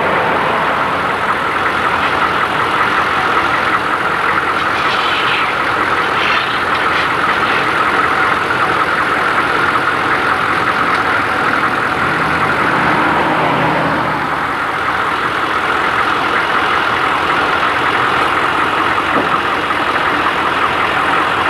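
Steady road and engine noise of a vehicle driving along, heard from inside the cab.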